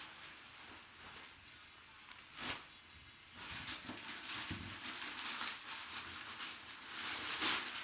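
Packaging being handled and unwrapped: crinkling and rustling, with one short burst about two and a half seconds in and steadier rustling from about three seconds on, loudest near the end.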